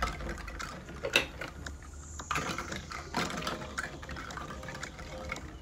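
Plastic toy fruits and vegetables clicking and knocking against one another and against a plastic tub as a child rummages through them, in irregular separate clicks.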